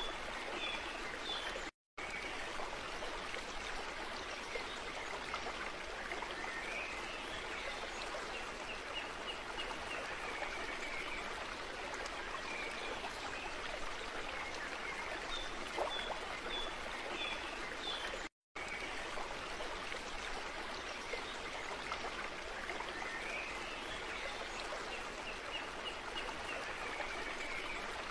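Steady rushing of a flowing stream, with faint runs of short high notes that recur in the same pattern about every sixteen seconds. The sound cuts out completely for a split second twice, about two seconds in and again about two-thirds of the way through.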